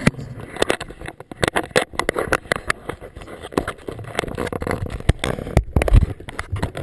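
Handling noise from a GoPro Hero 2 camera being gripped and moved: a rapid, irregular run of knocks, clicks and scrapes of fingers on the camera, with a heavier bump near the end.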